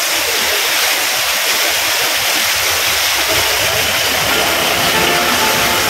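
A small waterfall pouring and splashing onto rocks: a steady, loud rush of water. Faint background music comes in about halfway through.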